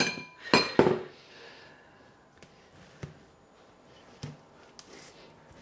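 Two sharp knocks near the start, then faint, scattered scrapes and taps of a large metal spoon cutting into baked crumble topping in a foil tray.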